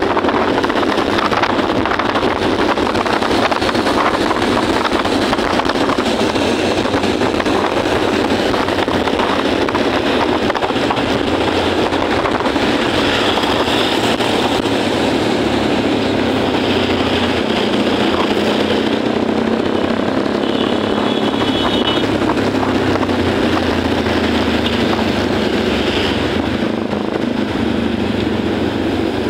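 Motorbike riding through traffic: a steady loud rush of engine and wind noise on the microphone. A brief high-pitched tone is heard about two-thirds of the way through.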